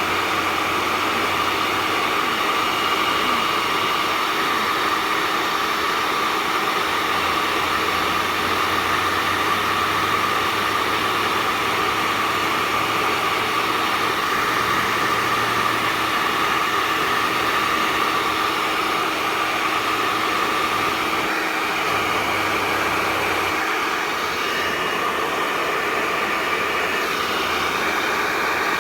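Hair dryer blowing steadily at full flow, driving a fidget spinner at high speed: a continuous rush of air with a steady whine.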